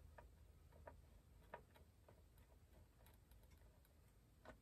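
Near silence, with a few faint, scattered clicks from hands handling small parts and screws on a treadmill console's display board; the sharpest click comes near the end.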